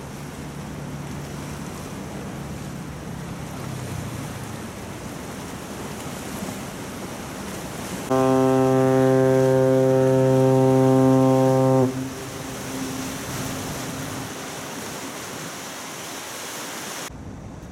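A ship's horn sounds one long, steady blast of about four seconds over the wash of water and wind along the strait's rocky shore.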